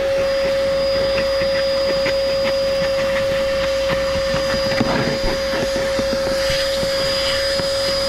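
Chemical Guys DetailVac corded handheld vacuum running steadily with a constant whine, its crevice tool sucking dirt and debris from a car's plastic seat-track trim. Light clicks and scrapes come in about halfway through as the nozzle works along the trim.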